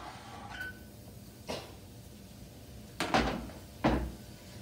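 Garlic press clicking and knocking as garlic is pressed into a wok: a couple of light clicks, then two sharp knocks about a second apart around three seconds in.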